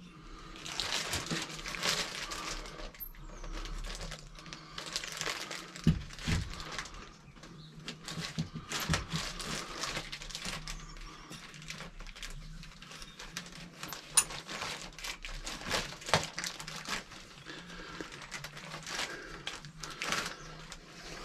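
Hand tool working the metal of a bike fork: irregular rasping, scraping strokes in bouts of a second or two, with a few sharp knocks.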